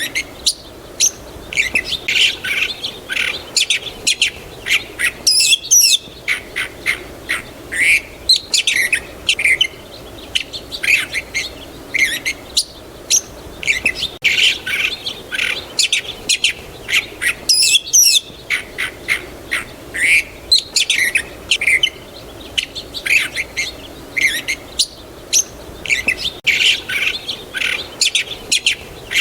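Small birds chirping and twittering in a dense chorus of short, high calls, with brief lulls about every twelve seconds.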